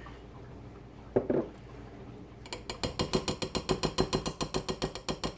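Rapid, even metal-on-glass tapping, about nine taps a second, starting about halfway through: a metal measuring cup knocked against the rim of a glass mixing bowl to shake out thick ranch dressing.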